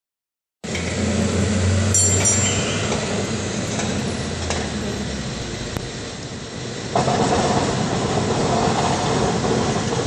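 San Francisco cable car running along the street: a steady rail rumble with scattered clicks and rattles. A brief high metallic ringing comes about two seconds in, and the sound grows louder and more tonal from about seven seconds.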